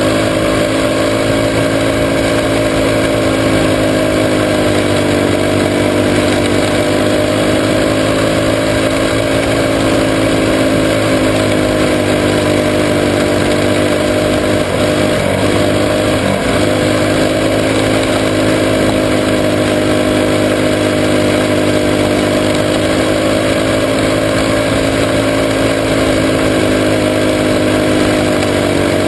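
Junior sprint car's engine running hard at racing speed, heard from on board the car. Its pitch sags and climbs back a few times over the lap.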